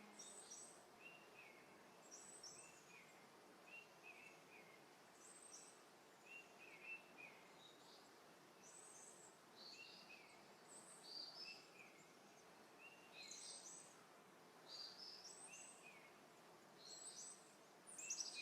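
Faint birdsong: short chirps repeating about once a second, some lower and some higher-pitched, over a steady background hiss.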